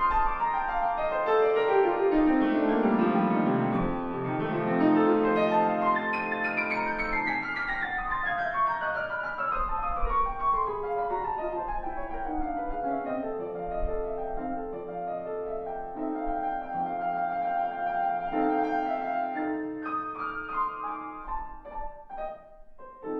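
Solo Longato grand piano playing classical music: fast runs sweep down and then up and down across the keyboard, giving way to steadier chords, and the playing grows quieter near the end.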